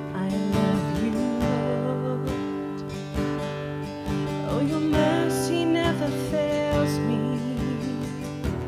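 Worship music: acoustic guitar strumming over sustained chords, with a wavering melody line on top.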